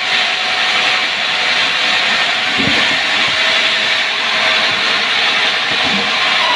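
Power saw cutting wood: a loud, steady cutting noise, with a few soft knocks.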